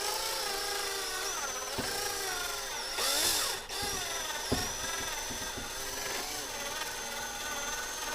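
Electric drill running with a steady whine as its bit cuts the head off a rivet post on a diecast toy car. The pitch sags twice as the bit bites, with a louder, rougher grinding burst about three seconds in and a sharp click about four and a half seconds in.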